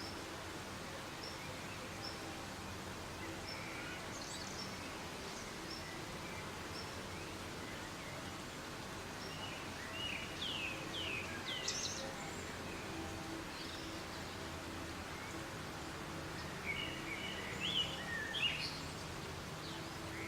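Soft rain falling steadily, with birds calling over it: a thin high chirp repeated about once a second at first, then louder bursts of sweeping chirps about halfway through and again near the end.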